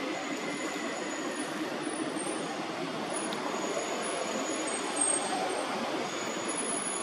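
Steady outdoor background noise, an even hiss and rumble with no distinct events, with thin high-pitched tones coming and going above it.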